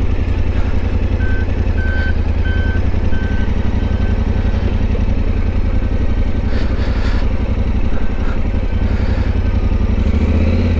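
Yamaha Ténéré 700's parallel-twin engine running steadily at low revs. A short, high electronic beep repeats under a second apart for the first few seconds, then fades.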